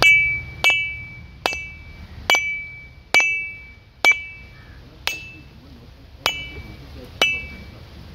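A husked coconut being struck with a metal blade to crack the shell open: nine sharp knocks, about one a second, most with a short bright metallic ring.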